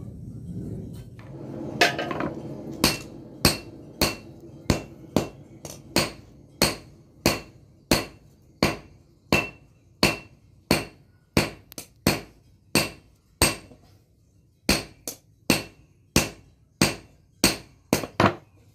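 Hand hammer forging a glowing pamor billet on an anvil: a steady run of blows, about two a second, each with a short bright ring. There is a brief pause a little past the middle before the blows resume.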